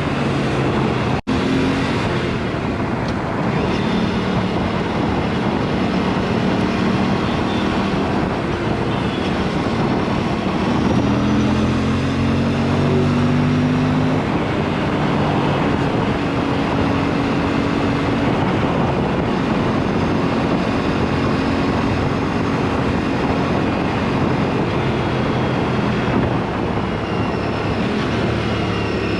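Aprilia superbike engine running loud through an exhaust with the dB killer removed, under way, its note stepping up and down with throttle and gear changes over a steady rush of wind noise. The sound drops out for a moment about a second in.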